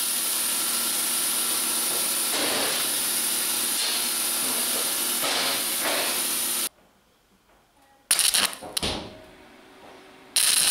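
A steady workshop hiss with a few brief scraping handling sounds as a thin cut steel plate is lifted off a plasma-cutting table. It breaks off abruptly into near silence for over a second, and near the end a stick-welding arc strikes and runs with a steady hiss.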